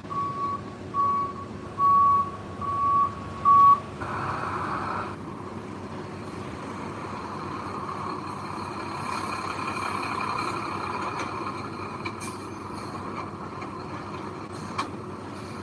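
Reversing alarm on a dump truck beeping about once a second, five times, stopping about four seconds in. A short hiss follows, then heavy machinery runs steadily, with a few sharp knocks near the end.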